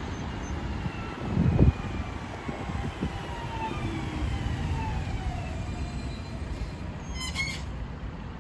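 Alstom Citadis Dualis tram-train running in slowly over the rails. Its traction motors whine and fall in pitch as it brakes into the stop, over a steady low rumble. There is a low thump about a second and a half in, and a short high tone near the end.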